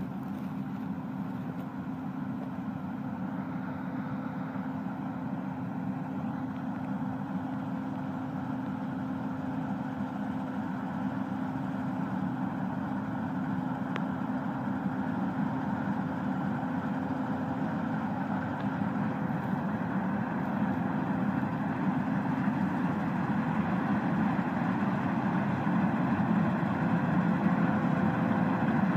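Claas Lexion 670 combine harvester running as it cuts wheat, a steady machine drone that grows gradually louder as the combine comes closer.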